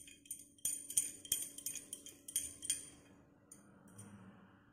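Light metallic clinks and taps, about a dozen over two seconds, each with a brief bright ring, from hands handling dough beside a steel bowl of dry flour. Near the end comes a soft rustle of a dough ball being dipped and coated in flour.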